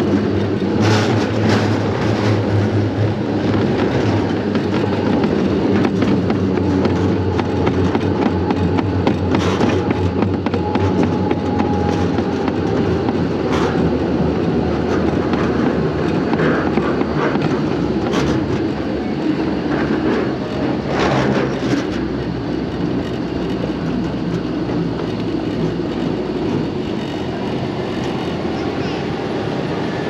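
Wheels of a sled on a Wiegand summer bobsled run rumbling steadily along its stainless steel trough, with occasional sharp scrapes and clacks. The rumble eases a little in the last third as the sled slows toward the station.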